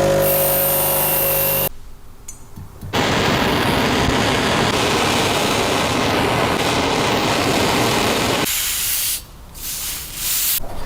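Spray painting: a steady hiss of spray running for about five seconds, with a shorter burst before it and another near the end, broken by short pauses.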